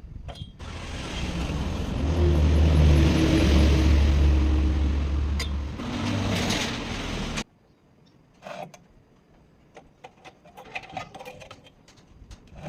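An engine running loudly with a steady low hum and a hiss, growing louder over the first couple of seconds and cutting off suddenly about seven seconds in. After that, only quieter scattered clicks and knocks.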